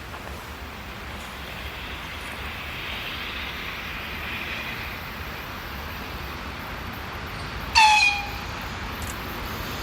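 A train approaching along the line, its steady noise slowly growing louder, with one short, high-pitched horn blast a little before the end.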